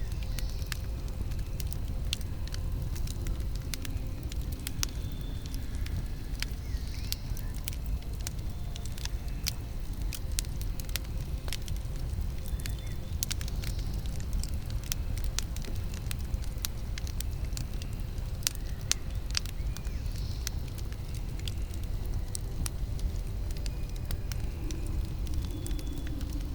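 Campfire burning, with wood crackling and popping at irregular moments over a steady low rumble.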